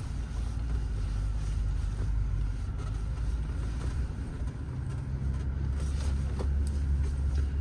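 Low engine drone and tyre rumble heard inside the cabin of a Mahindra Scorpio N driving on a rough dirt track, with a few faint knocks. The engine note gets louder about halfway through.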